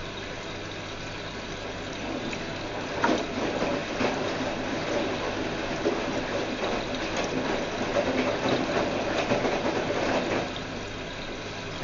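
Whirlpool washing machine drum turning through a wash. Water sloshes against a steady low hum, with irregular clattering and clicks that build up about two seconds in and ease off near the end.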